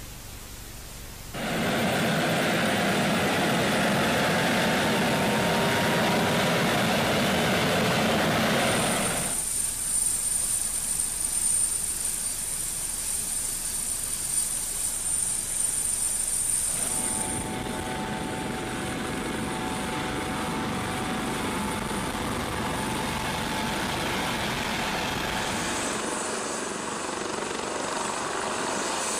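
A US Coast Guard MH-65 Dolphin helicopter running on the ground: its twin turboshaft engines and turning rotor make dense, steady noise that comes in loud about a second and a half in, after a faint hiss. The sound shifts at each cut, with a high steady turbine whine in some stretches and steady mid-pitched engine tones in others.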